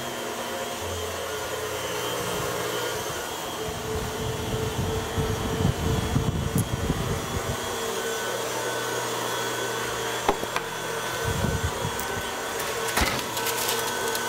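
KitchenAid Heavy Duty stand mixer running on high, its wire whip beating royal icing of egg whites and confectionery sugar to make it light and fluffy: a steady motor whir. A few knocks and clicks of handling are heard over it, most near the end.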